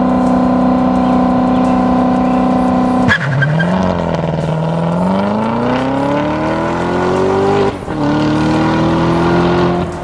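Corvette Z06's supercharged V8 held at steady high revs, then launching: about three seconds in the note drops sharply and climbs steadily as the car accelerates away. A brief break comes near the end for a gear change, then the note climbs again. This is a launch-control start.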